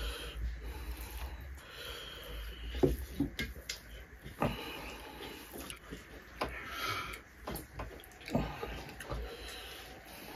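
Close-up eating sounds of people eating rice and curry by hand: chewing and mouth noises, fingers working food on metal plates, and a few light knocks of bowls and plates on the wooden table.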